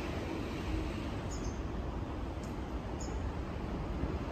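Steady background noise at an open railway station, with faint short high chirps about every second and a half.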